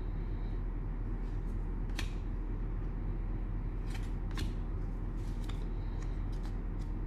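Trading cards and their cello-pack wrappers being handled: a few short, light clicks and snaps, over a steady low hum.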